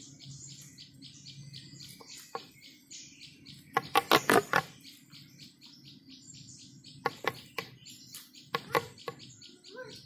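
Small birds chirping quickly and steadily in the background. Short clusters of sharp clacks stand out over them, the loudest about four seconds in and weaker ones near seven and nine seconds in.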